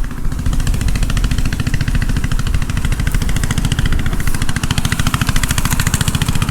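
A small engine running steadily and loudly, with a fast, even pulsing beat.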